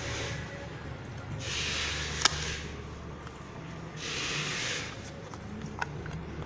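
Sharp plastic clicks as a walkie-talkie's battery cover is pried and slid off, the loudest about two seconds in. Breathing sounds close to the microphone recur every few seconds.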